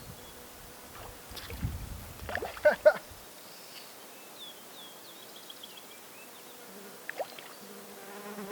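Quiet pond-side ambience: a low handling rumble with two sharp knocks a little before three seconds in, a bird's short falling chirps in the middle, and a fly buzzing close to the microphone near the end.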